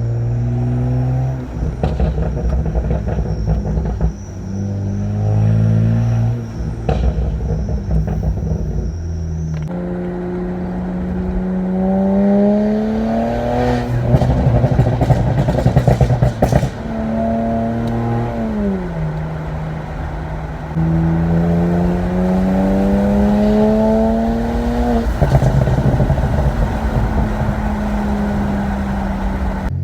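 BMW 335's straight-six engine and exhaust pulling hard through the gears. The pitch climbs over several seconds, drops at each gear change and falls away on a lift-off. A burst of crackles and pops comes about halfway through.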